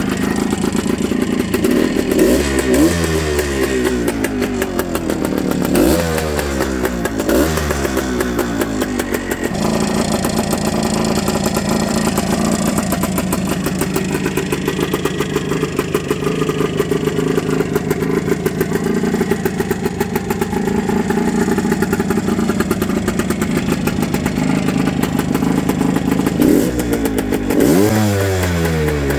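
1974 Suzuki TS250's single-cylinder two-stroke engine running, its throttle blipped several times in the first eight seconds and again near the end, settling to a steady idle in between.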